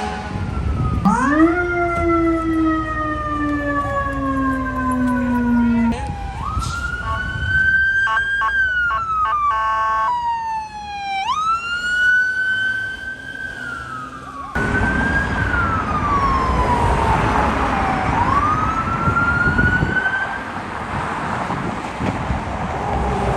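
Fire apparatus sirens on an emergency response, three vehicles in turn. First a siren sounds several tones at once, rising sharply and then sliding slowly down for about five seconds. Then a siren wails up and down with a rapid choppy warble in the middle, and finally another wail falls and rises again over traffic noise.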